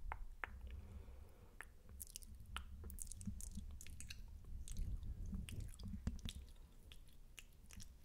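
Close-miked wet mouth sounds for ASMR spit painting: irregular sticky saliva clicks and smacks as fingers touch the lips.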